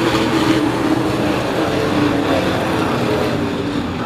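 A pack of sport-class race trucks running hard around a short oval, several engines sounding together as a steady roar. One truck passes close about half a second in, louder than the rest.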